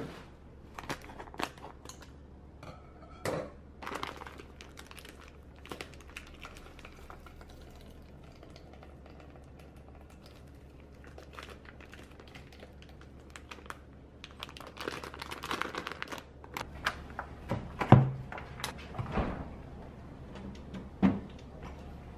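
Kitchen food-prep handling: light clicks and rustles as vegetables are set into a bowl and food is squeezed by hand, then a busier stretch of knocks of dishes and utensils on the counter. The loudest is a sharp thunk about 18 seconds in, with another near 21 seconds, over a low steady hum.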